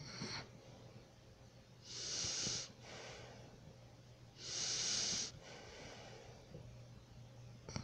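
A sleeping person snoring: two loud, hissing breaths about two and a half seconds apart, each followed by a softer, lower breath.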